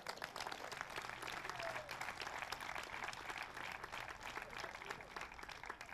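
Applause from many hands clapping, fairly faint and thinning out near the end.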